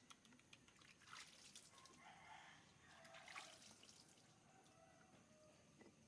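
Near silence with faint water dripping and trickling and a few soft clicks.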